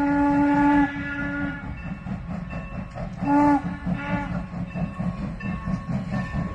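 Norfolk & Western No. 475's steam whistle sounding for a grade crossing: a long chord-like blast ends about a second in and a short blast follows about three seconds in, over the steady chuffing of the 4-8-0 steam locomotive working as it approaches.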